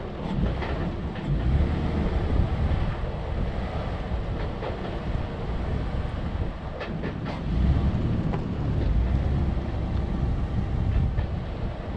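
A 4x4 vehicle on the move: a low, uneven rumble with wind buffeting the microphone and scattered short knocks and rattles.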